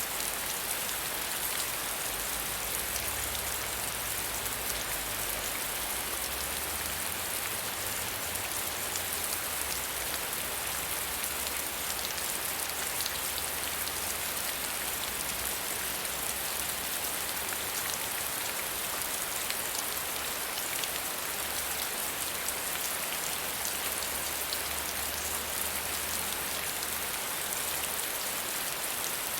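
Steady soft rain falling, an even hiss with many fine drop ticks that keeps on without change.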